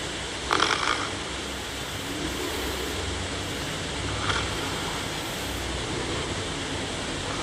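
A person snoring in their sleep, with a snore about every three and a half seconds: about half a second in, at about four seconds, and again at the end. A steady hiss lies underneath.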